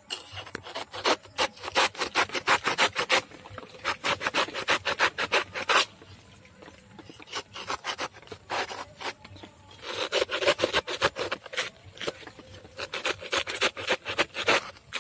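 A blade sawing back and forth through the fibrous stem of a banana plant, fast rasping strokes about five a second, in runs with a pause of about two seconds near the middle.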